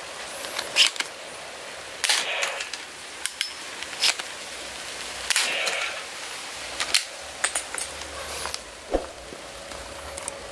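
Toy double-barrel shotgun being fired and worked: a string of sharp plastic clicks and pops at irregular intervals, a few of them followed by a short rattle.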